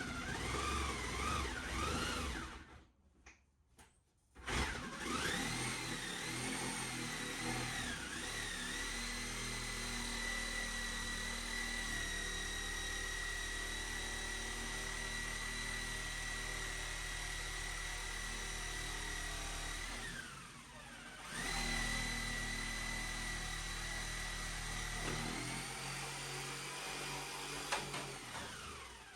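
Power drill running in long trigger pulls, its motor whine wavering as it spins up and then holding steady. It stops briefly after about three seconds and again around twenty seconds, and winds down near the end.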